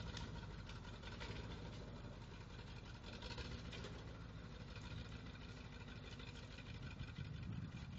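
1979 Ford F-250's 351M V8 engine idling roughly after sitting unused for 12 years.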